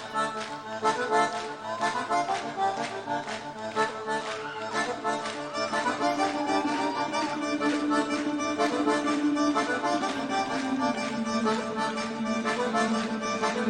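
Live band music led by an accordion, with sustained squeeze-box chords over a steady beat. From about halfway a long low note is held, stepping down near the end.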